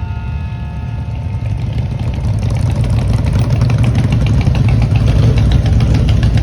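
A group of motorcycles riding in, engines running, growing louder over the first few seconds as they come closer.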